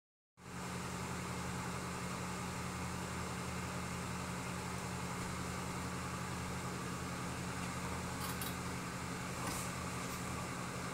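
Steady low hum with an even hiss, and a couple of faint brief noises near the end.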